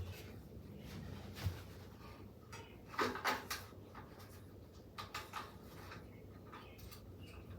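Scattered light clicks and knocks of tools and bicycle parts being handled, with a small cluster of sharper taps about three seconds in and a few more around five seconds.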